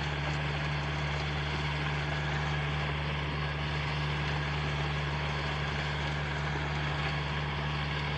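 Farm tractor's diesel engine running steadily with a constant low hum as it works the soil into raised beds.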